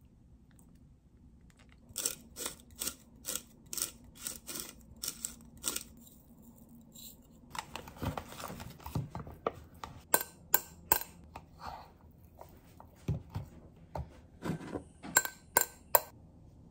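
Small kitchen handling sounds: a run of about ten sharp clicks in quick succession, roughly three a second, then scattered clinks and soft knocks of glass bowls and a spoon on the counter.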